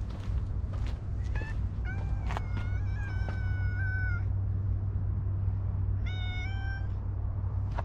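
Black-and-white stray cat meowing: a brief call, then a long drawn-out meow of about two seconds, then a shorter meow about six seconds in.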